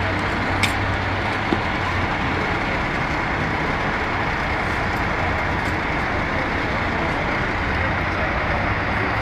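Steady low rumble of idling emergency-vehicle engines under a constant street-noise haze, with a couple of small clicks in the first two seconds.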